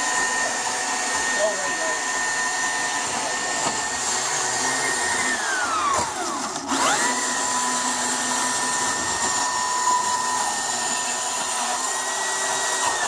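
A handheld power cutting tool's motor whines steadily as it cuts open a soldered copper pipe joint. About six seconds in, its pitch sinks away and winds back up within a second.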